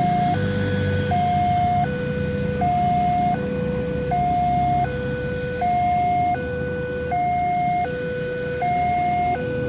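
Railway level-crossing warning siren sounding its two-tone call, a higher and a lower tone alternating evenly about every three-quarters of a second, the signal that a train is approaching and the gates are down.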